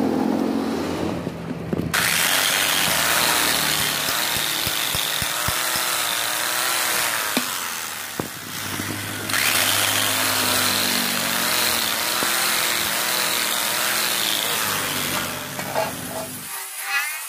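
Power drill spinning an abrasive brush against an electric motor's cast housing, scouring off rust and paint with a steady grinding noise. It dips briefly about halfway through and cuts off about a second before the end.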